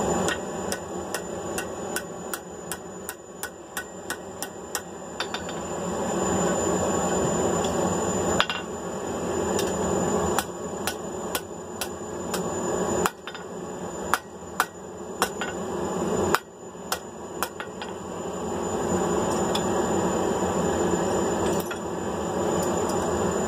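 Hand hammer striking hot mild steel on an anvil, a quick run of ringing blows at about two to three a second, then more spaced strikes, over a steady background roar.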